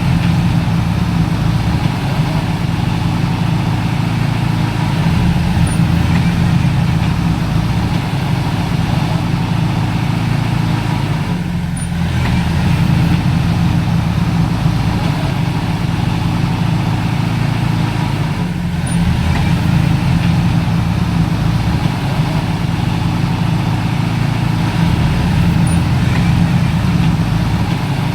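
Diesel engine of heavy earthmoving machinery running steadily: a loud, low, continuous drone.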